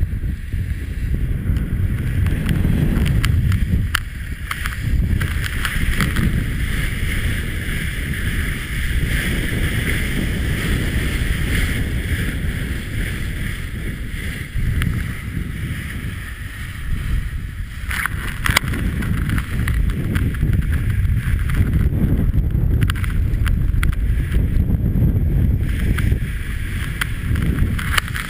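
Wind buffeting the microphone over the hiss and splash of water rushing along the hull of a Class 40 racing sailboat sailing fast, with a couple of sharp knocks about two-thirds of the way in.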